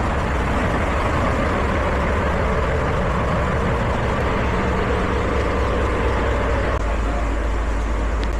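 Sagano Romantic Train running, a steady low rumble with faint held tones over it.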